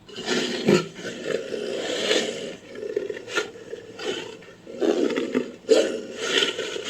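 Designed creature sound effect for Lycaenops, built from leopard and wolf recordings: a run of harsh, raspy growling snarls that starts abruptly and swells unevenly, with a few sharp louder bursts.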